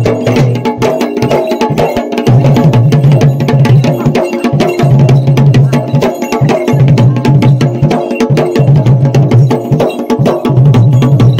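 Dhol and damau drums of Uttarakhand playing a loud, fast jagar rhythm, with dense stick and hand strokes and a deep booming bass that swells and drops every second or two.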